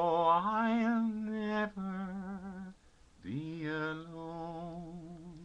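A man singing unaccompanied, with a wide vibrato, in two phrases. The second phrase, starting about three seconds in, is one long held closing note that slowly fades.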